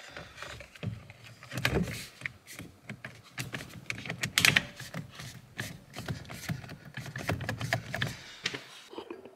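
Irregular clicks, knocks and light rattles as a forged carbon fibre steering wheel is handled and fitted onto the steering column, with the sharpest knock about halfway through.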